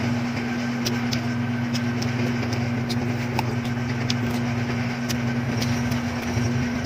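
A steady machine hum with a low tone, with faint, scattered crisp clicks of chewing on crunchy water apple (tambis).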